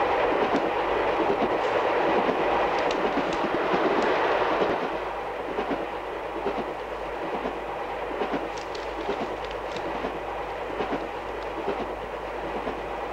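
Passenger train running, heard from inside the carriage: a steady rumble and rattle with faint wheel clatter, a little quieter after about five seconds.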